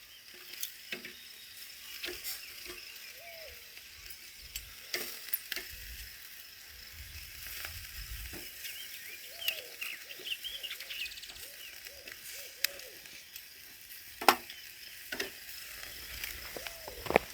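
Food sizzling on a hot grill as a steady high hiss, with scattered sharp clicks and knocks; the loudest knock comes near the end.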